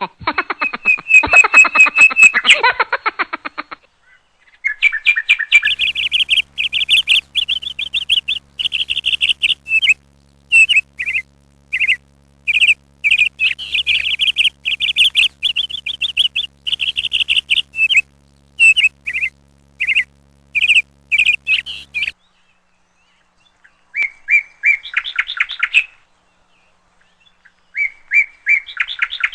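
A bird calling: a loud, harsh call for the first few seconds, then long runs of rapid high chirps in bouts, with two short bursts of chirping near the end.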